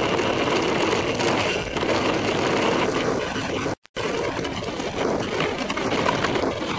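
Mountain bike rolling fast down a gravel track: a steady rushing, rattling noise of knobby tyres on loose gravel and the bike shaking over it. The sound cuts out for a moment about four seconds in, then carries on the same.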